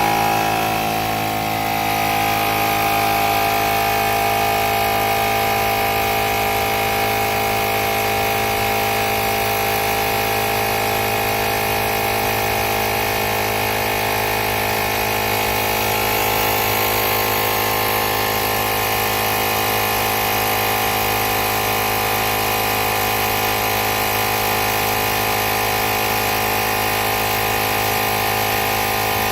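Small piston air compressor built into a portable jump starter pack, running steadily with an even motor hum and whine.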